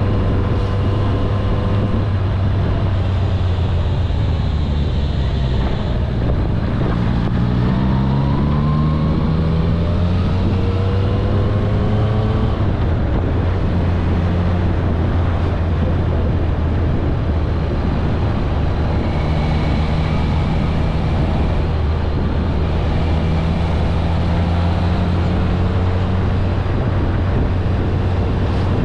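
Kawasaki ZRX1100 inline-four engine running under way at a steady cruise. About a third of the way in, the engine note climbs for several seconds as the bike accelerates, then settles back to a steady hum.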